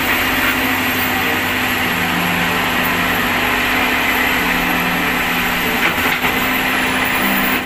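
Komatsu PC200 crawler excavator's diesel engine running steadily under working load as the boom and bucket dig mud.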